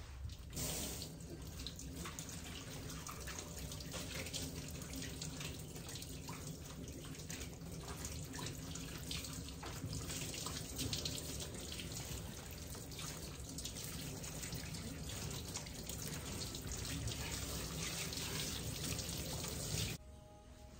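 Water spraying steadily from a grooming-tub hose sprayer onto a dog's coat in a stainless steel tub, shut off suddenly near the end.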